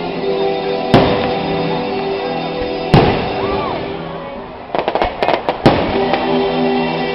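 Aerial firework shells bursting: two loud booms about two seconds apart, then a quick run of crackling pops, with music playing throughout.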